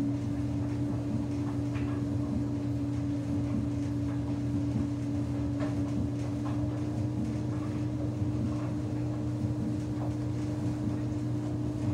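Samsung front-loading washing machine running with a single towel in the drum: the drum motor holds a steady speed, giving a steady whine over a low hum, with a few faint knocks.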